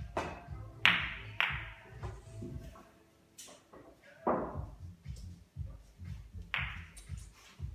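Pool balls clacking on a pool table during a 9-ball shot: the cue strikes the cue ball about a second in, the cue ball hits an object ball half a second later, and two more ball-on-ball clacks follow, the first strike being the loudest.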